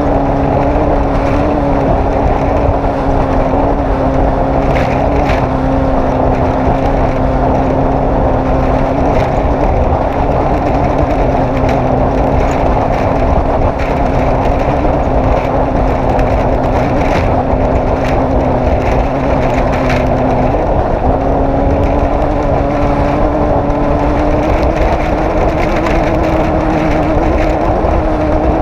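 Off-road race vehicle's engine running loud and steady at speed, its pitch dropping suddenly about two-thirds of the way through and then climbing slowly again, with a few faint knocks over it.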